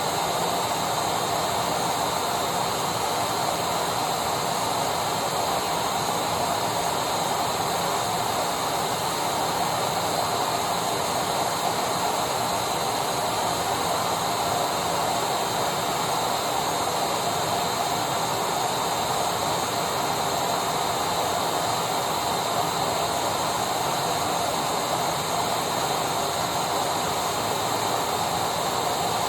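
Electric vacuum cleaner running steadily: a continuous rush of air and motor noise with a faint high whine, unchanging throughout.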